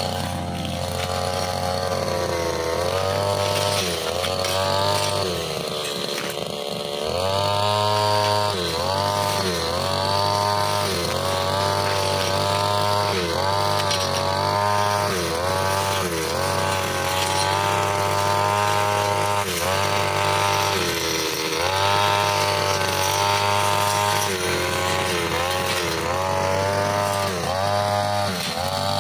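Brushcutter engine running at high revs with a metal blade cutting thick grass, ferns and brush. Its pitch dips and recovers again and again, every second or two, as the blade bites into the growth.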